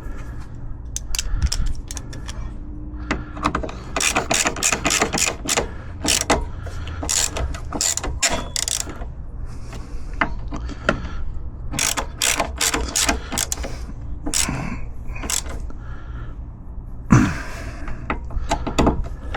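Socket ratchet wrench clicking in quick runs of ticks as nuts are turned on a bracket, in several bursts with short pauses between.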